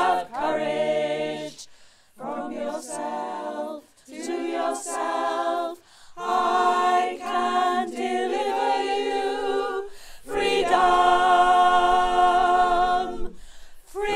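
A small a cappella choir singing in harmony, in short phrases with brief breaths between them, then holding a long chord near the end.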